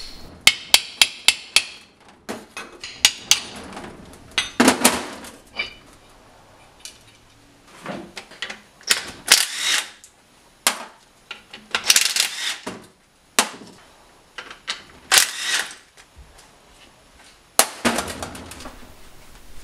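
A quick run of about eight sharp metal taps on the cast differential housing, then several short bursts of a cordless driver spinning out the differential's rear cover bolts, with pauses between bolts.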